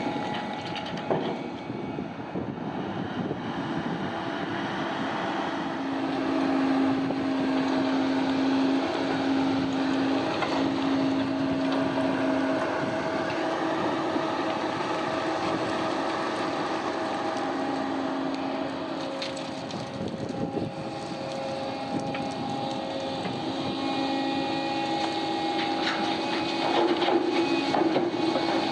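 Heavy diesel machinery working at a mine crusher: a steady engine and machinery din with whining tones at a few steady pitches that break off and return, one low whine strongest around a quarter of the way in and a higher one near the end.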